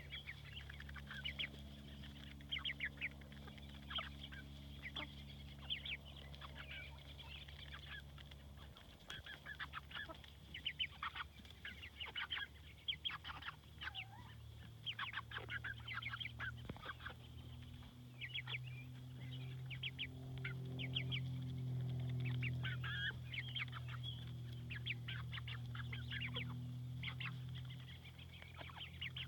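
Farm poultry calling: a steady stream of short, high calls from several birds. A low steady hum runs underneath and grows louder in the later part.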